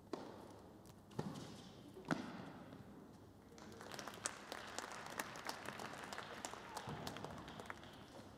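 Tennis ball struck by rackets three times, about a second apart, with sharp hits echoing in an indoor hall, followed by a few seconds of crowd applause.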